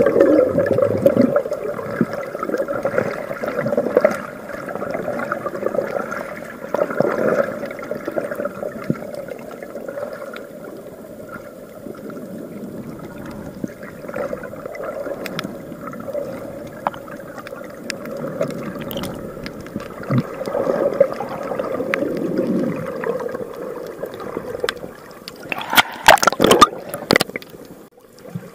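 Muffled underwater gurgling and sloshing of sea water as heard by a submerged camera. Near the end come a few sharp splashes as a kayak paddle blade dips into the water beside it.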